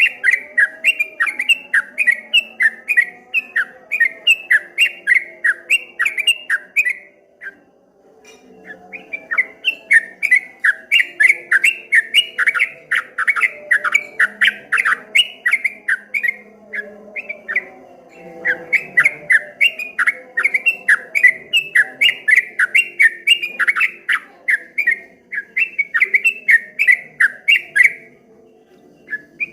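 Yellow-vented bulbul (trucukan) singing its fast rolling 'ropel' song: rapid chattering notes at about four a second, in long runs that break off briefly about seven seconds in and again near the end.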